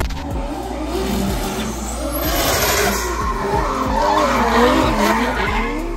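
Drift car sliding on asphalt: the engine revs rise and fall while the spinning rear tires skid and squeal, loudest in the middle and later part.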